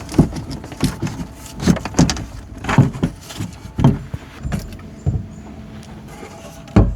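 ABS plastic drain pipe pieces knocked and pushed together in a dry test fit: a string of irregular thumps and clacks, the loudest near the end.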